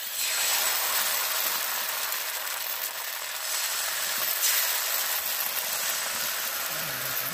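Rice-flour batter sizzling on a hot oiled iron kadai as it is spooned in and spread thin, a steady hiss.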